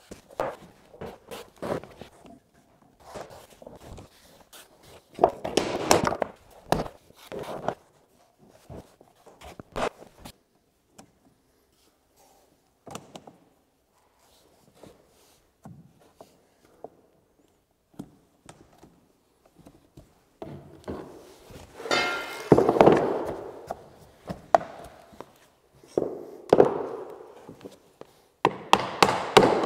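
Vinyl flooring planks being laid and clicked together on a wood subfloor, with scattered knocks and taps. A quieter stretch in the middle gives way to denser, louder knocks near the end, as a plank is tapped into place with a hammer and tapping block.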